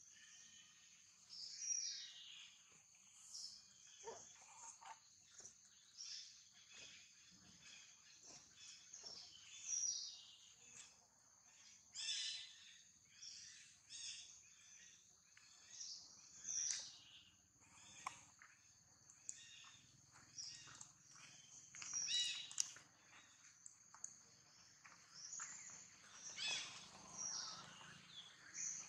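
Forest ambience: a steady high insect drone, with short, high chirping calls that fall in pitch, repeating every few seconds, and scattered soft clicks.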